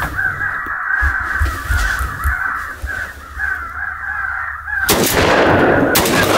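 Crow caws from an electronic crow caller playing in a repeating loop. About five seconds in, a sharp, loud shotgun shot cuts in, followed by loud noise.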